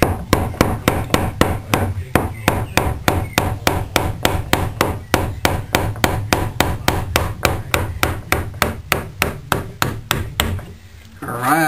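Hammer rapidly tapping a flathead screwdriver to drive a door's hinge pin out, about four sharp metal strikes a second, stopping about ten and a half seconds in.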